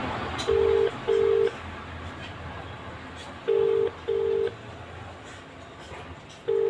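Telephone ringback tone of an outgoing call not yet answered: a low double ring, two short beeps close together, sounding three times at even intervals of about three seconds.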